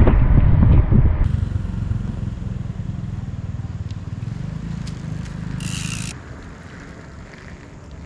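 Riding noise on a GoPro action camera during a mountain-bike ride: loud low wind and road rumble for about a second, then a sudden change to a quieter steady low rumble. The rumble stops about six seconds in, with a brief hiss just before.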